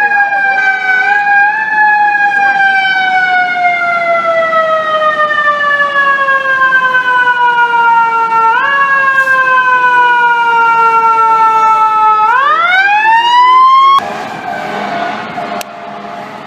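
Fire truck's mechanical siren slowly winding down in pitch for about twelve seconds, nudged up twice on the way, then wound back up in a fast rising howl. It cuts off abruptly near the end, leaving general city street traffic noise.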